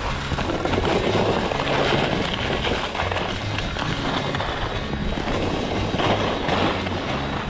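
Head KORE99 skis sliding and scraping over packed snow at speed, a steady rushing hiss, with background music and its bass line underneath.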